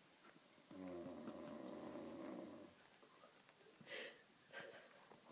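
Snoring: one long snore lasting about two seconds, followed a little later by two short, noisy breaths.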